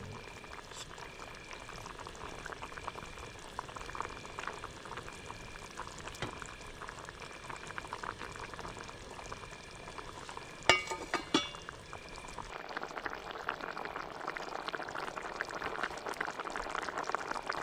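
A pan of egg curry bubbling and sizzling as it cooks, getting louder in the second half. A cricket chirps steadily in short regular pulses, and a brief clatter comes about 11 seconds in.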